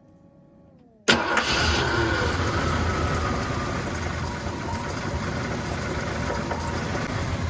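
1991 Ford F-150's 5.8-litre EFI V8 starting on fresh oil: faint steady tones that dip in pitch as the key turns, then the engine fires about a second in and settles into a steady idle.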